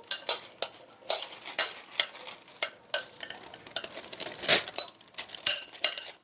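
A metal spoon scraping and clinking against a glass bowl in quick, irregular strokes as sliced potatoes and vegetables are scraped out of it.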